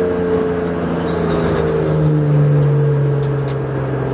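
BMW M4 GT4 race car's twin-turbo inline-six heard from inside the cockpit, running steadily in third gear as the car slows, its pitch sinking slowly.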